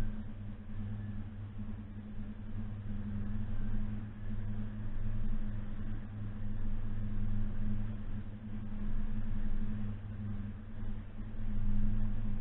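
Suzuki Jimny's engine running while driving, a steady low drone whose loudness swells and dips.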